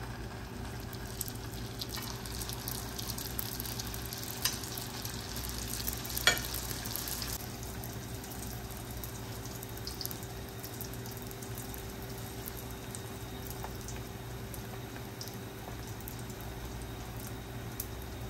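Spring rolls deep-frying in hot oil, a fresh batch just put in: steady sizzling with crackling, busier for the first several seconds and then settling to an even sizzle. Two sharp clicks a few seconds in, about two seconds apart.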